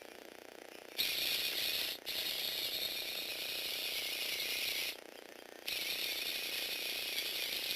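Lego Technic mini robot's small electric motor driving its plastic gears. It starts about a second in, cuts out for an instant, stops for under a second near the middle, then runs again steadily.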